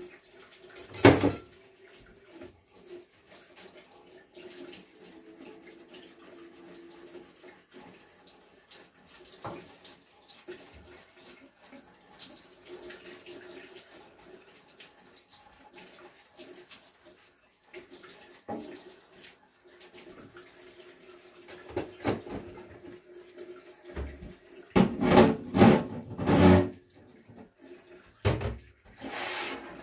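Kitchen tap running into a stainless steel sink while dishes are washed by hand, with knocks and clatter of dishes against the sink: a loud knock about a second in, a few scattered ones, and a burst of clattering near the end.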